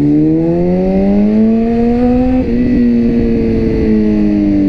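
BMW S1000RR's inline-four engine pulling through a gear with the revs rising, then a short break about halfway as it shifts up, after which the revs slowly fall as the throttle eases off.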